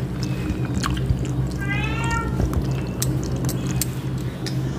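A cat meowing once, about two seconds in, a short cry that rises and falls in pitch. It sits over a steady low hum and light clicks of hands and food on steel plates.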